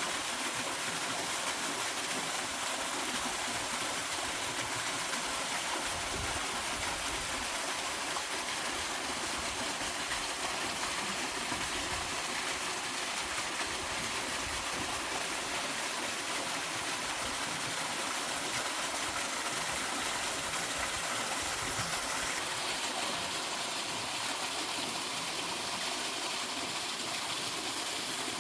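Waterfall pouring into a rocky mountain stream: a steady, unbroken rush of falling and flowing water.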